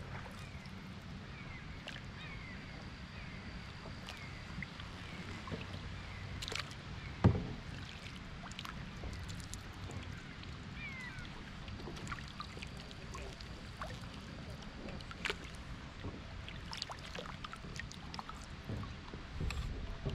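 Kayak paddling: the paddle blades dipping and pulling through calm water covered in floating leaves, with small splashes and light clicks between strokes. A single sharp knock stands out about seven seconds in.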